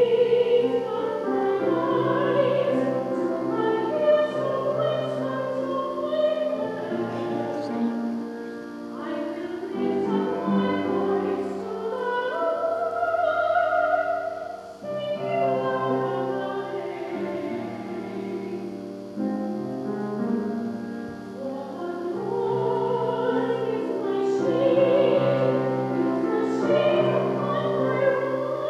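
Singing with a strong vibrato over sustained instrumental accompaniment, in phrases of a few seconds each: sacred music during a church service.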